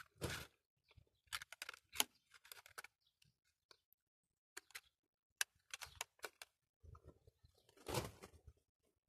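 Faint handling noises: scattered small clicks, taps and rustling as an avocado pit held in wire supports is set back into a plastic cup of water, with a louder rustle just after the start and again near the end.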